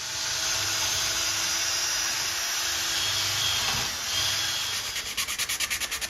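Cordless drill spinning a wire brush against the steel bearing bore of a VW Transporter's rear hub, a steady scrubbing rasp over a faint motor hum, cleaning out corrosion where the new bearing's clip will seat. Near the end the drill stops and 400-grit sandpaper is rubbed around the bore by hand in quick back-and-forth strokes.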